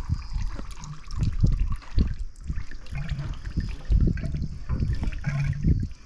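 Engine oil gurgling and trickling out of a Rotax aircraft engine into a bucket as the engine is burped, pushing the last of the oil out in an uneven run of low gurgling gulps.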